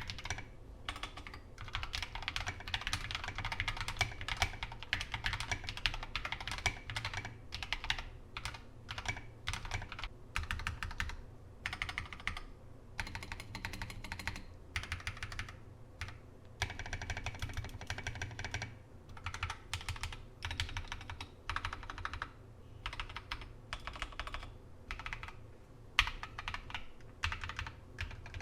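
Typing on a mechanical keyboard fitted with Akko Matcha Green linear switches: fast runs of keystrokes in bursts, broken by short pauses.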